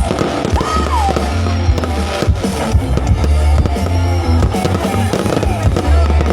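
A song with a heavy bass beat played loud over a sound system, with fireworks banging and crackling through it.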